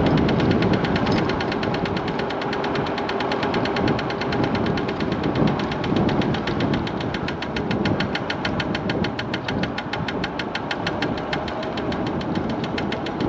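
Rapid, evenly spaced knocking from the front wheel of a MiniPro Mi716 electric scooter while riding, over a steady rumble of road and wind. Something at the wheel is striking the underside of the front fender.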